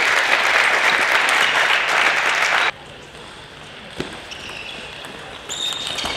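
Spectators applauding, cut off abruptly under three seconds in. Quieter hall ambience follows, with a single sharp knock about four seconds in.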